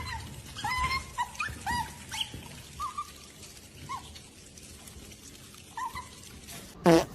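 A dog whimpering in a string of short, high-pitched whines over the first few seconds, with two more a little later. A single loud, short sound comes near the end.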